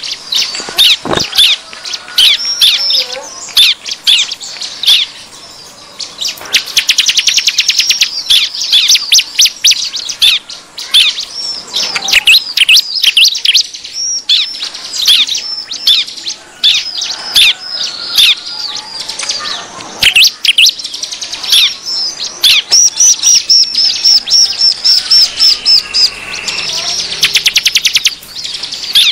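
Bar-winged prinias (ciblek) calling noisily: a rapid stream of sharp, down-slurred chirps broken by fast chattering trills. This is the agitated 'ribut' calling used as a lure for wild prinias.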